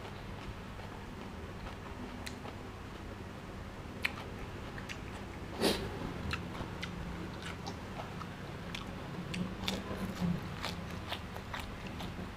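A man chewing raw beef and fresh vegetables, with scattered wet mouth clicks and one louder crunch about five and a half seconds in.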